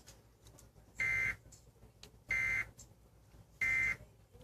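Emergency Alert System end-of-message data bursts: three short, identical electronic buzzing screeches about a second and a quarter apart, the digital code that signals the end of the alert.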